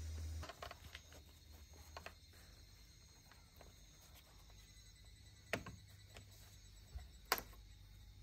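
Scattered light taps and clicks over a quiet background, with two sharper clicks past the middle. A low hum cuts off about half a second in.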